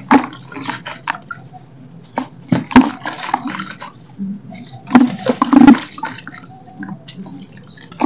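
A lump of roasted dirt crumbled by hand over a basin of muddy water: grains and crumbs crackle off the lump and patter and splash into the water in irregular bursts, the biggest about every two to three seconds.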